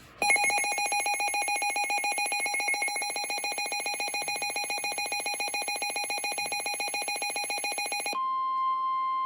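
An emergency alert signal. A rapid, buzzy electronic beeping runs for about eight seconds, then switches abruptly to a steady single-pitched alarm tone near the end. The steady tone is the 1050 Hz warning alarm tone that comes before a weather radio warning message.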